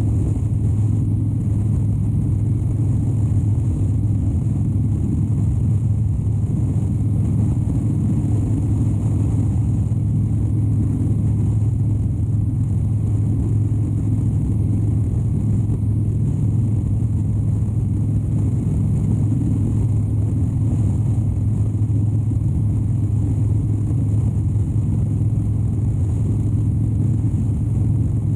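2013 Harley-Davidson Dyna Wide Glide's 103 cubic inch V-twin running at a steady cruise: a low, even drone that holds the same revs throughout.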